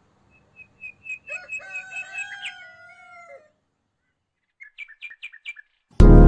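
A rooster crows one long cock-a-doodle-doo over a run of short, high chirping calls. After about a second's pause comes a quick series of about eight more short chirps.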